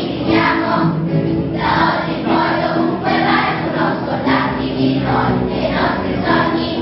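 A choir of primary-school children singing a song together.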